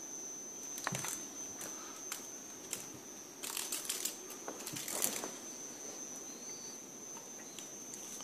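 Light knocks and scuffs from a cat scrambling and pawing on a wooden ledge and from the camera being handled, busiest around three and a half to four seconds in and again near five seconds, over a faint steady high whine.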